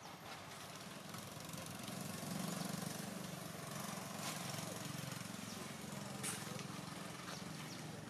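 Motorbike engine running steadily as it passes by, a low hum over outdoor background noise, with a couple of brief sharp clicks partway through.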